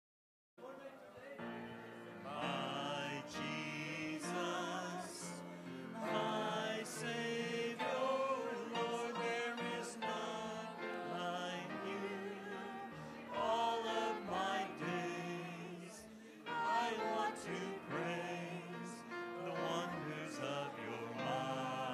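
Music starts about half a second in: classical-style singing with vibrato on long held notes over instrumental accompaniment.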